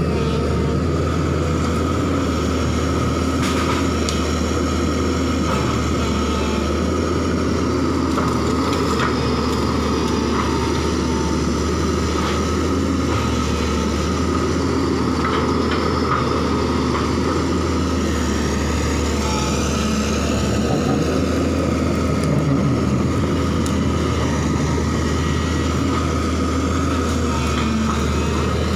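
JCB crawler excavator's diesel engine running steadily as the machine works its bucket through brush and small trees, with occasional faint cracks of breaking branches.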